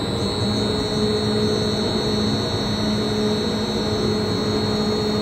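Amfec industrial blender running in reverse: its electric drive and mixing shafts give a steady hum with a high whine above it.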